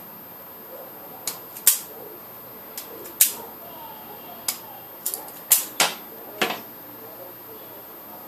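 Soldering at a solar panel's junction box: about ten sharp, irregular clicks and ticks, several bunched together around the middle, stopping after about six and a half seconds.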